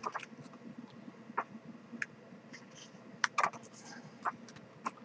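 Pages of a photo book being turned and handled by hand: irregular light paper clicks and rustles, about eight sharp ones spread unevenly.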